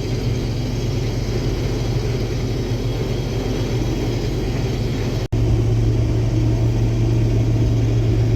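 Case IH Axial-Flow combine running steadily while harvesting soybeans, a constant low engine drone. It drops out for an instant about five seconds in and comes back slightly louder.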